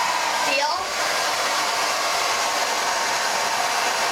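Handheld hair dryer running steadily, a continuous even rush of blown air.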